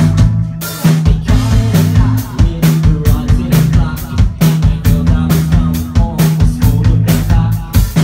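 Live rock band playing at full volume: a steady drum-kit beat with snare and bass drum under a repeating bass line and electric guitars.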